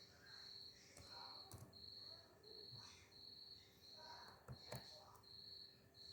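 Near silence with a faint high chirp repeating evenly, about three every two seconds, and a few soft clicks.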